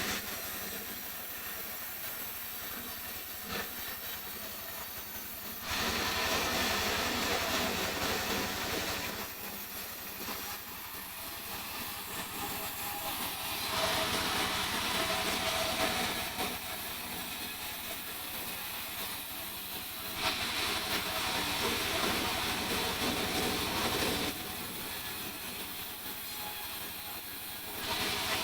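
Sawmill saw running and cutting into a mahogany log: louder stretches of hissing cutting noise, about four of them, alternate with quieter running between passes.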